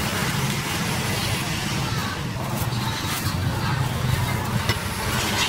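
Street traffic ambience: a steady low rumble of passing vehicles, with a few light clicks near the end.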